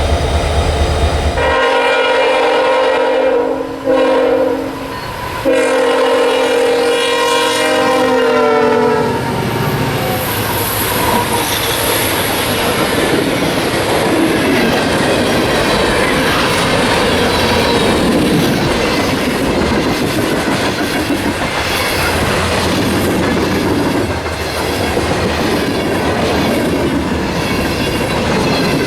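A locomotive's multi-note air horn sounds two long blasts. The train then rolls past with a loud rumble and the clickety-clack of wheels on rail joints, with some wheel squeal.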